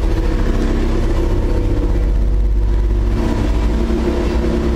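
An engine running steadily at idle, a low even drone with an unchanging pitch.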